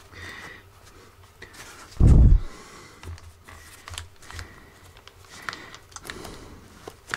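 Handling noise from a sheepskin replacement earpad being stretched onto an AKG K701 headphone's ear cup: faint rustling and small plastic clicks. There is one dull low thump about two seconds in.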